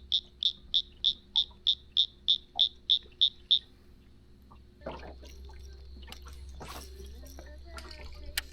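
A frog calling, a run of evenly spaced high peeps at about three a second that stops about three and a half seconds in. A low rumble with scattered clicks and clatter follows from about five seconds in.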